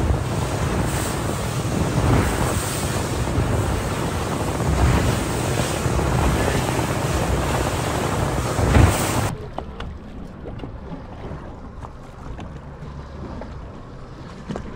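Fishing charter boat under way on the ocean: rushing water and wind buffeting the microphone in loud, gusty waves. About nine seconds in, it cuts off suddenly to a much quieter wash of water and wind.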